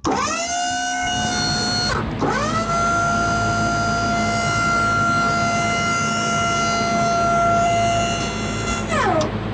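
A machine-like whine, as of a hydraulic pump motor. It spins up quickly from low to a steady pitch, drops and spins up again about two seconds in, holds level for about six seconds, then winds down near the end.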